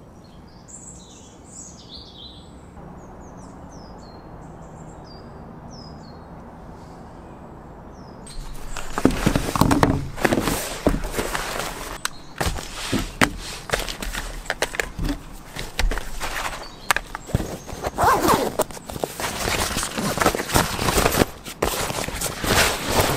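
Birds chirping over quiet garden background for about the first eight seconds. Then close rustling, clicking and knocking as camera gear is handled in a padded fabric camera bag. Near the end the bag's zip is worked.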